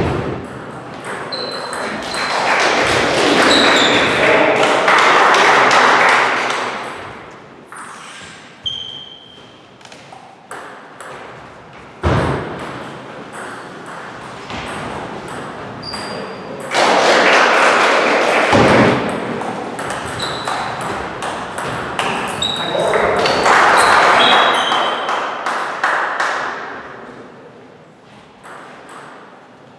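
Table tennis ball clicking repeatedly off paddles and the table in doubles rallies, with a few short high squeaks. Three loud noisy stretches of a few seconds each stand out over the clicks.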